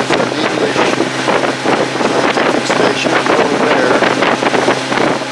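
Outboard motor of a Zodiac inflatable boat running steadily under way, a constant low hum, with wind buffeting the microphone in irregular gusts.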